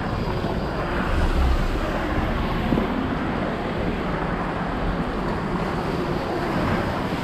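Wind buffeting the microphone of a handheld camera, a steady rushing rumble over street noise, with a stronger gust about a second in.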